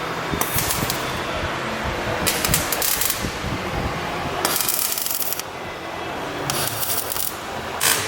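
Metalwork on sheet steel step pieces in short, hissing bursts, about five of them, each around a second long, over a steady background noise.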